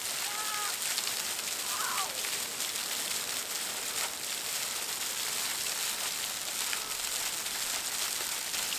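Thin waterfall pouring down a cliff face and spattering onto the rocks below: a steady, even hiss of falling water, like heavy rain.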